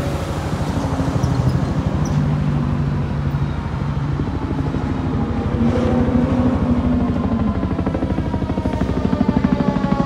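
Helicopter rotor chop overhead, a steady fast throbbing pulse. Near the end a slowly rising whine joins in.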